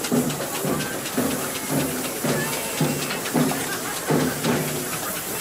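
Steam traction engine running, its exhaust beating evenly at about two chuffs a second over a steady hiss of steam.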